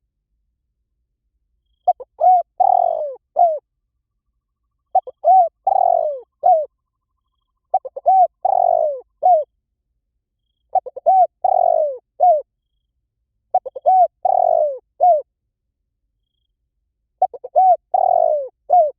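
Spotted dove cooing: six repeated phrases about three seconds apart, each a few short coos around one longer, rolling coo.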